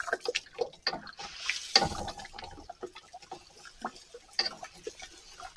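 Thick hot grain mash being stirred in a pot as the malted barley goes in: irregular wet sloshing and gloopy clicks, with a louder knock about two seconds in.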